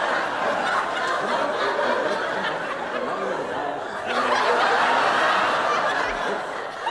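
Studio audience laughing: a continuous wash of many people chuckling that swells again about four seconds in.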